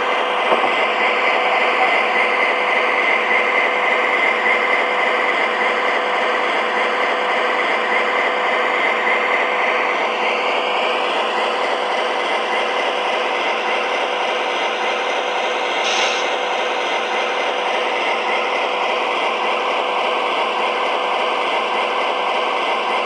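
MTH Proto Sound 3.0 freight-yard effect from the model diesel's onboard speaker: the crew working on the locomotive's brake shoes, a steady work noise over a constant hum. A brief hiss comes about two-thirds of the way through.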